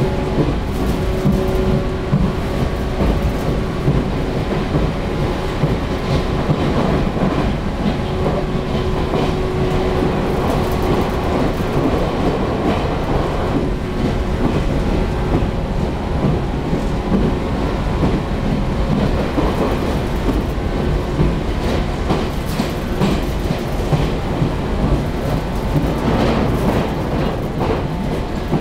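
Cabin noise of a JNR-era electric local train running at speed: a steady rumble of wheels on the rails with a few steady tones running through it. The uploader takes the train for a 413 series EMU.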